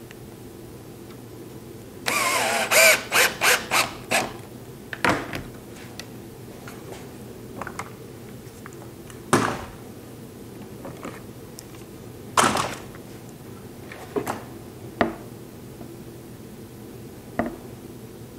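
A cordless drill used as a screwdriver runs briefly to drive a screw home, a short whir followed by about five quick trigger bursts. After that come scattered knocks and clacks as the metal bracket plate and the fence blocks are handled.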